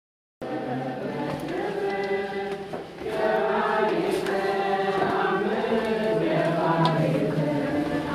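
A choir chanting, several voices holding long notes together. It starts abruptly about half a second in and dips briefly just before the three-second mark.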